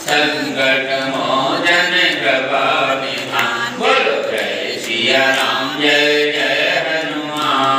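A man singing a Hindu devotional chant solo into a handheld microphone, one melodic phrase after another with short breaths between them.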